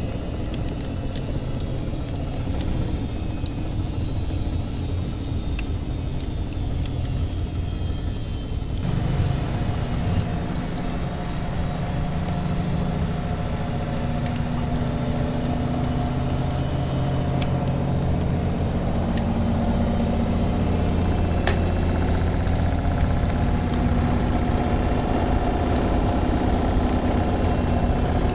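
Washing machine running with a steady low motor-and-drum hum that shifts and fills out about nine seconds in, with scattered faint crackles of a wood fire.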